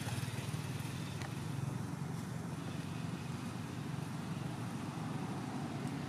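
A steady low engine rumble, like a motor running at an even idle, with no change in pitch, and a few faint clicks over it.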